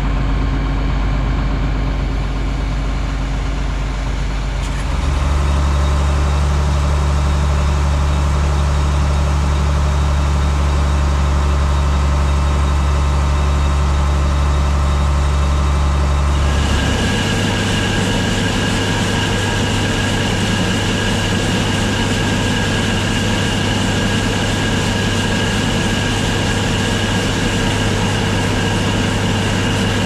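Diesel farm machinery running steadily: combine and tractor engines, then a tractor's grain cart auger unloading shelled corn into a truck. About halfway through, the sound switches to a grain auger running, a steady drone with a high whine over it.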